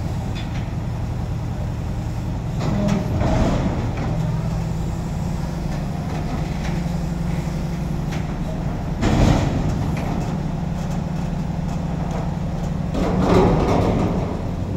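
Heavy diesel engine idling steadily, with a sharp knock about nine seconds in and brief louder noises near three and thirteen seconds.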